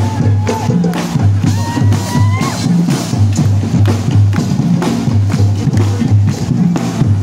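Marching parade percussion: a bass drum beating steadily about twice a second, with other drums and wooden percussion hits over it.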